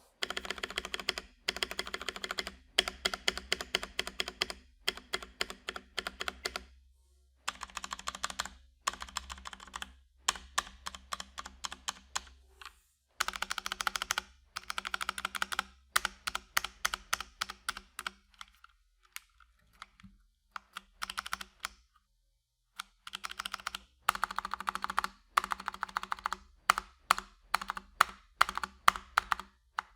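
Mechanical keyboard, an FL eSports 68 with Kailh switches, typed on in fast runs of clicky keystrokes broken by short pauses, with a sparser stretch about two-thirds of the way through.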